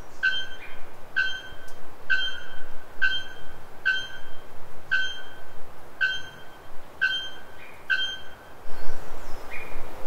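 Bare-throated bellbird (araponga) calling: a single short ringing note repeated about once a second, nine times, over steady forest background noise. The calls stop near the end, followed by a burst of noise.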